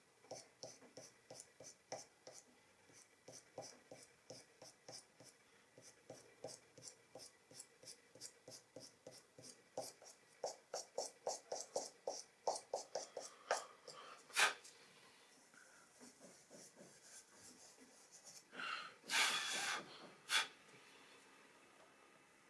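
Soft pastel stick scratching across thin drawing paper in quick, short, repeated strokes, about three a second. The strokes stop after a sharp tap about two-thirds of the way through, and a louder brushing rustle of hand on paper comes near the end.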